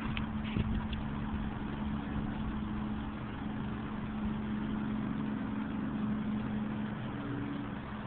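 A steady low engine hum over an even hiss.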